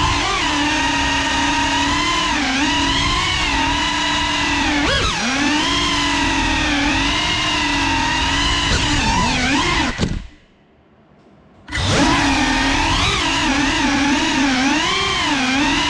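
Brushless motors and propellers of a GEPRC CineLog35 cinewhoop FPV drone whining in flight, the pitch rising and falling with the throttle. The sound cuts out abruptly about ten seconds in for over a second, then starts again.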